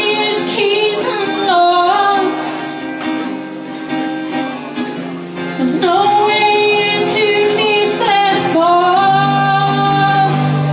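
A woman singing live into a microphone while strumming an acoustic guitar. Her voice drops out for a few seconds in the middle while the guitar carries on, then comes back with a long held note near the end.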